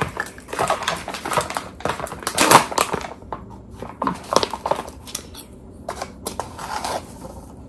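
Stiff plastic pouch of tomato powder being opened and handled: a run of crinkling, crackling clicks, loudest about two and a half seconds in, then sparser rustling as a measuring spoon digs into the powder.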